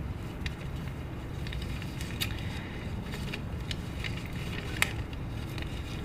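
Sheets of paper handled and shuffled at a podium microphone: scattered light clicks and rustles, with one sharper tick about five seconds in, over a steady low rumble.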